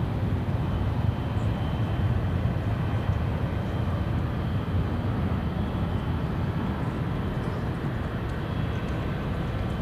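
Jet airliner engines running with a steady low rumble and a faint high whine.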